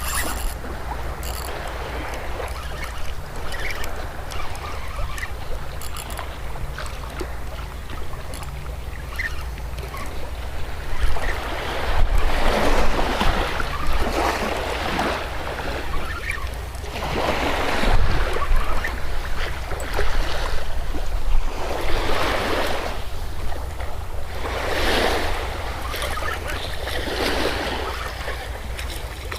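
Surf breaking and washing up the beach, a run of waves rushing in one after another in the second half, over a steady low wind rumble on the microphone.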